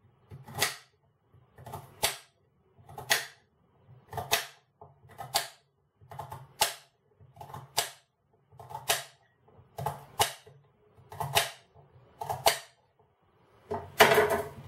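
Kitchen knife chopping a vegetable on a glass chopping board: sharp double clicks of the blade striking the glass, a little more than one chop a second. Near the end, a louder, longer scraping clatter as the knife pushes the chopped pieces together.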